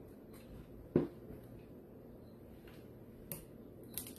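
A few small sharp clicks from fingers and nails working at the plastic DJI Mavic Air remote controller while peeling its protective stickers off; the loudest click comes about a second in, with two lighter ticks near the end.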